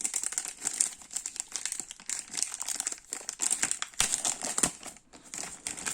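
Game packaging crinkling as it is opened and handled: a dense run of irregular crackles with no pause.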